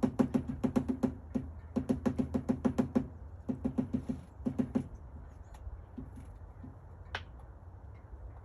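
Great spotted woodpecker pecking at wood: four bursts of rapid knocks, about nine a second, in the first five seconds, then a few scattered single taps.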